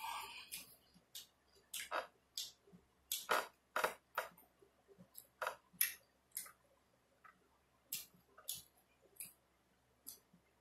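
Close-up chewing and mouth smacking while eating: irregular short, wet clicks, about two a second, with uneven gaps.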